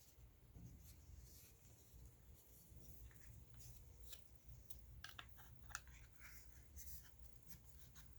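Faint handling sounds: small clicks, taps and rubbing as the DJI Osmo Pocket and its packaging are handled, with a quick cluster of taps about five seconds in, over a steady low hum.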